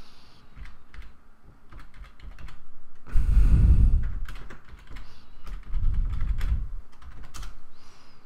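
Typing on a computer keyboard: a scattered run of key clicks. Two low muffled rumbles come through it, the louder about three seconds in and another around six seconds.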